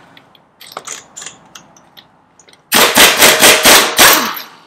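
Impact wrench hammering in a rapid rattle for about a second and a half as it breaks loose a lug nut on the truck's front wheel, after a few light clicks of the socket going onto the nut.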